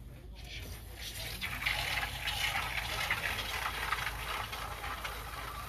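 Cow's milk squirted by hand from the udder into a cup for pajaretes, a hissing liquid stream that starts about a second in.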